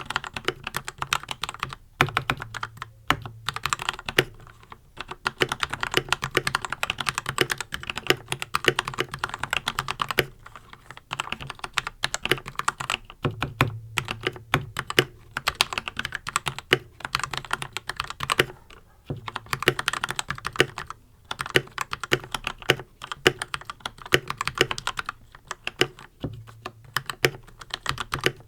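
Red Dragon Kumara mechanical keyboard typed on steadily, fitted with linear Gateron Red switches and the stock ABS keycaps: a fast run of keystroke clacks, broken by several short pauses.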